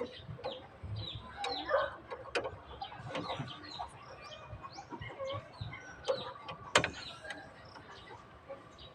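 Chickens clucking and chirping, with a few sharp metallic clicks, the loudest nearly seven seconds in.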